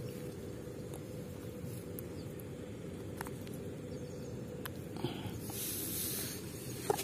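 Handling noise from a mesh fish keep bag and its drawstring being worked by hand: faint clicks and taps, with a rustling hiss about five seconds in as the fish is slid into the bag. A steady low rumble and a faint steady hum lie underneath.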